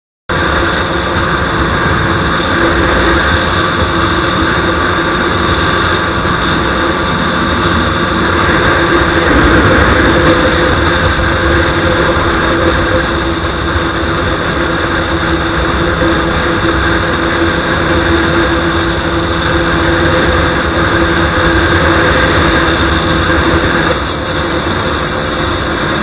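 KTM Duke 125's single-cylinder four-stroke engine running steadily under load at high speed, with heavy wind rushing over the microphone. It drops a little about two seconds before the end.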